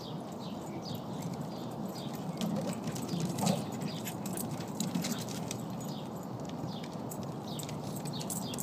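Two Shiba Inus' paws and claws pattering and clicking on the pier deck as they run and play, over a steady rushing background noise.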